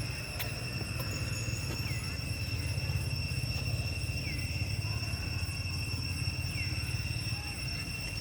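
Forest ambience: a steady high-pitched insect drone under a low rumble, with a short falling chirp repeating about every two and a half seconds.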